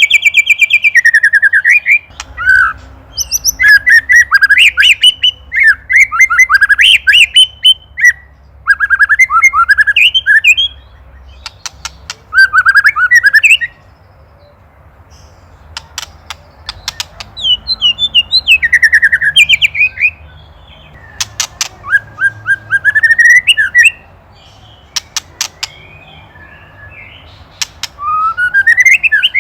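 White-rumped shama (murai batu) giving bursts of fast, rattling 'ketrekan' chatter, full of sharp clicks and quick up-and-down notes, phrase after phrase with short pauses between. This is the agitated rattle used to provoke other shamas.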